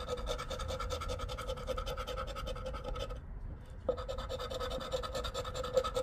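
A metal coin scratching the latex coating off a lottery scratch-off ticket in rapid, even back-and-forth strokes. There is a brief pause about three seconds in, then the scratching resumes.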